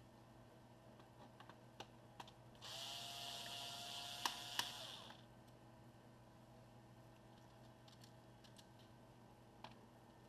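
Small electric screwdriver motor running for about two and a half seconds with a steady whine, backing out the laptop's bottom-panel screws, with a few light clicks before and during it.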